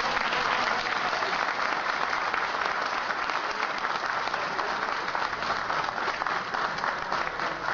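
An audience applauding: many hands clapping in a dense, even patter that slowly fades toward the end.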